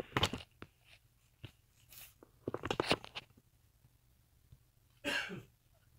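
Small handling noises: scattered soft clicks and scratches as fingers work the tiny antenna cable connectors onto a laptop's Wi-Fi card. There is a quick cluster of ticks about halfway through and a short, louder rustle about five seconds in.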